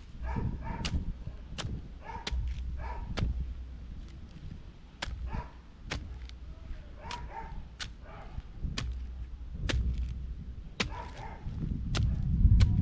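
Short animal calls repeated every second or so, over many sharp clicks and a low rumble.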